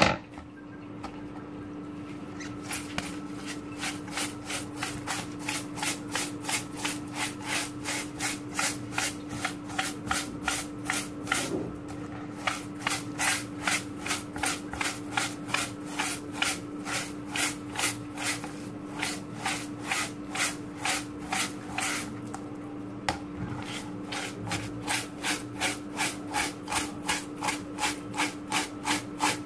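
Steel-wool scrubber rubbed back and forth over a stinging catfish on a cutting board, a rasping scrape about twice a second, broken by two short pauses. A steady low hum runs underneath.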